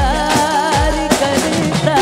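Live stage-show music: a wavering lead melody over a steady drum beat, with deep drum strokes that drop in pitch.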